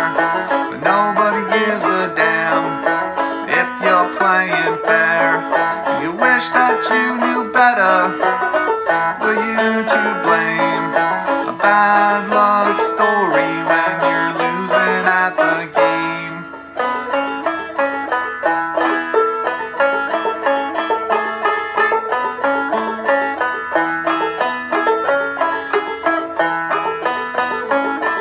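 Gold Tone CC Carlin 12 open-back five-string banjo played clawhammer style, a steady old-time frailing rhythm of plucked notes and brushed strums. The playing dips briefly about two-thirds of the way through, then carries on.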